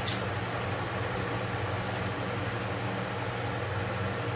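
Steady low mechanical hum with an even hiss, with one brief sharp click at the start.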